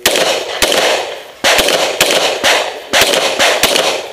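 Semi-automatic pistol firing about ten shots in quick, uneven strings with short pauses between them, each shot followed by a brief echo.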